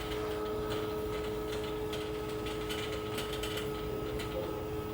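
Steady hum of running machinery, the equipment around the water heaters, holding a few constant tones over a low rumble, with faint irregular ticking.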